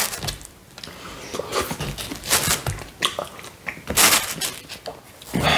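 A slice of Domino's Hawaiian pizza being torn loose from the pie in its cardboard delivery box: irregular soft tearing and rustling of crust, cheese and cardboard.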